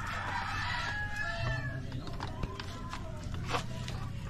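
A rooster crowing: one long call that trails off a little under two seconds in.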